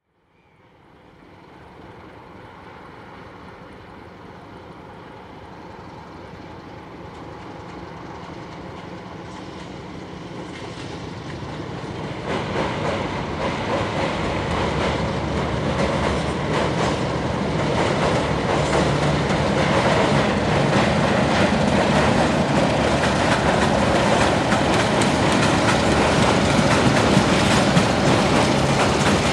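Diesel locomotive hauling a long train of loaded coal hopper wagons, growing steadily louder as it approaches and draws level. Engine noise and a dense clatter of wagon wheels on the rails, with a jump in loudness about twelve seconds in.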